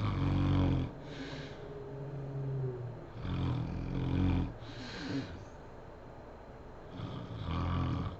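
A sleeping woman snoring, with three heavy snores about three and a half seconds apart and quieter breaths between them.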